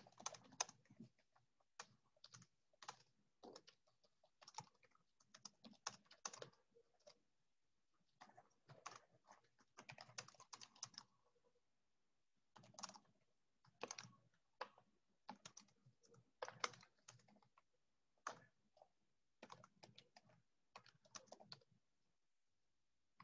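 Faint typing on a computer keyboard: short runs of keystrokes separated by brief pauses.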